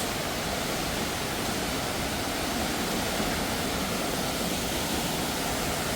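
Waterfall's steady rushing water, an even unbroken roar of white water.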